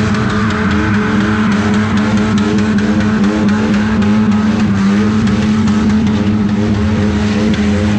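Autocross derby cars' engines running and revving loudly on a dirt track, their pitch rising and falling again and again over a steady low engine drone.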